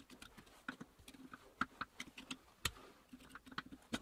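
Flat screwdriver tip scraping and clicking against the notched steel bottom-bracket cup as it is worked round: a faint, irregular run of small metal clicks and gritty scrapes, with one sharper click about two-thirds of the way through. Sand in the thread makes the cup bind.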